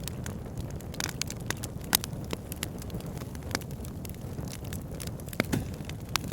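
Campfire burning with a steady low rush of flames and scattered sharp crackles and pops, the loudest about two seconds in and near the end.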